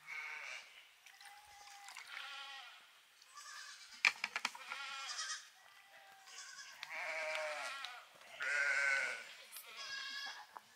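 Sheep and goats bleating, one call after another at several different pitches, with a few sharp clicks about four seconds in.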